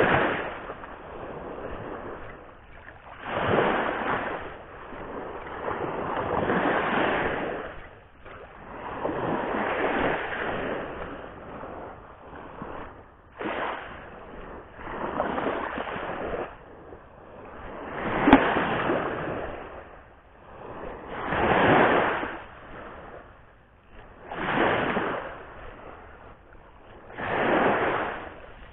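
Sea surf breaking and washing over a reef shore in repeated surges, about one every three seconds. A single sharp click sounds about eighteen seconds in.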